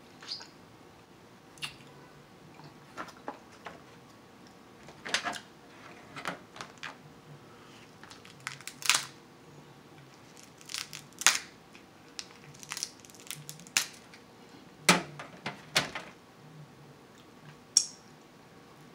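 Cooked crab leg shells being cracked and snapped apart by hand, a string of irregular sharp cracks and crunches with several louder snaps in the second half.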